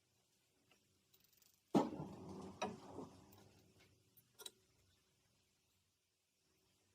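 A sudden knock, then about a second and a half of clattering handling noise with a sharp click inside it, fading out, and one more click a couple of seconds in.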